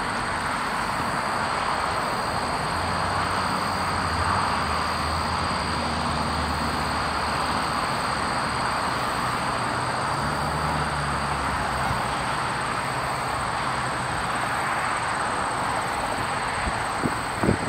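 Steady rumble of distant vehicle traffic, stronger through the middle, over a constant high-pitched whine.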